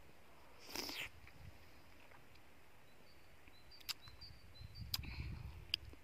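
Quiet eating sounds: a short breathy intake of air through the mouth about a second in, then light clicks of a metal spoon against a plastic tub and a low rumble near the end.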